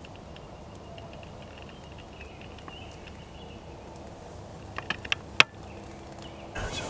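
Rural field ambience with faint high chirps, broken by a few sharp clicks about five seconds in, the last one loudest, and a louder rustle just before the end.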